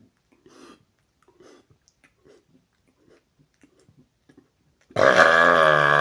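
A man's deliberate, loud, long burp, low-pitched and wavering, forced at a sound level meter in an attempt to top 120 dB. It starts suddenly about five seconds in, after a few faint mouth sounds.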